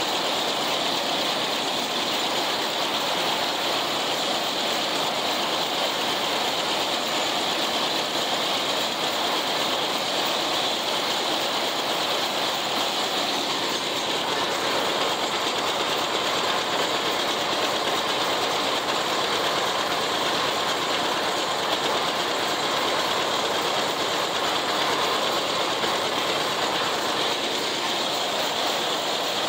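John Deere 70 tractor pulling an International 990 haybine through standing hay: the tractor engine and the haybine's reel and cutter running together in a steady, pretty noisy mechanical din, heard from the operator's seat.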